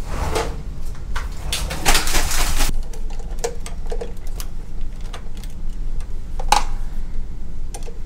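Clicks and light metal rattles from handling flexible metal electrical conduit and its squeeze connector, with a scraping rustle about two seconds in, over a steady low hum.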